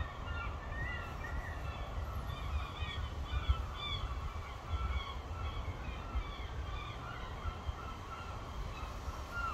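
Birds chirping in many short, quick calls, over a steady low rumble.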